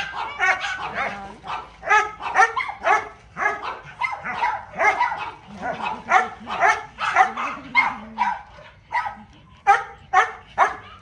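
A dog barking over and over in short, sharp barks, about two to three a second, with a brief pause about nine seconds in.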